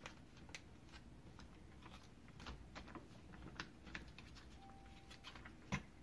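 Soft crinkles and light clicks of a Capri Sun foil drink pouch and its paper label being handled and pressed by hand, with one sharper tap near the end.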